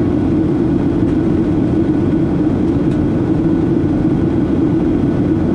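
Steady cabin noise inside a Boeing 737-800 during descent: its CFM56-7B turbofan engines and the airflow over the fuselage, heard from a window seat by the wing as one constant low drone.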